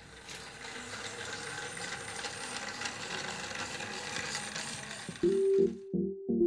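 Small toy DC motor and its wheels running steadily as a homemade mini electric rickshaw drives over a concrete floor, a whirring, rattling mechanical noise with a faint constant whine. About five seconds in, electronic music with a pulsing beat takes over.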